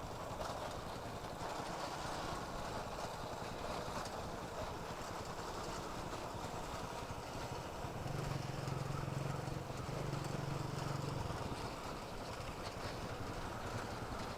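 Motorcycle engine running at low speed while riding slowly, with steady road and wind noise; the engine note swells for a few seconds past the middle, then settles back.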